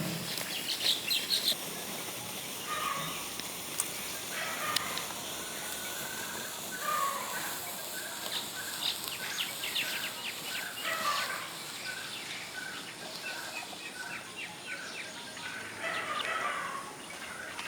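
Birds chirping and calling, many short repeated notes, over a steady high-pitched hiss.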